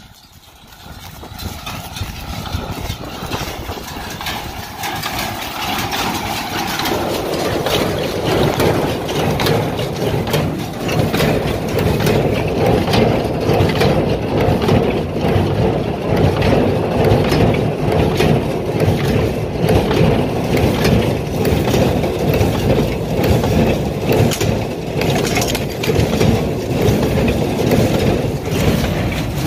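Tractor engine and a Massey Ferguson 124 square baler running in the field. The sound grows louder over the first several seconds, then stays steady.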